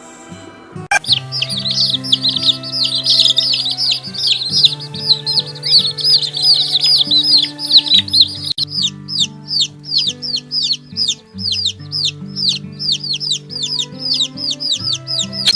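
Birds chirping: a fast run of short, high chirps, each falling in pitch, starting about a second in. After the midpoint it settles into a steady series of about three chirps a second. Background music with sustained low notes plays throughout.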